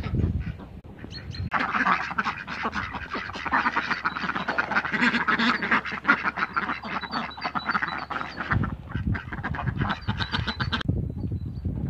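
A flock of domestic ducks quacking together in a dense, overlapping chorus that starts about a second and a half in and stops shortly before the end.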